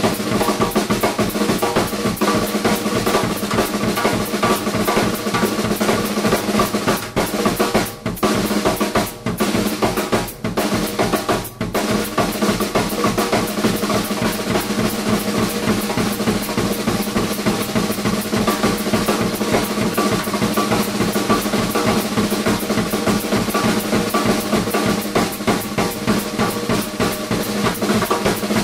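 Drum solo on a Gretsch drum kit: fast, dense snare and tom strokes with bass drum under them, broken by four brief pauses about a second apart roughly a third of the way through.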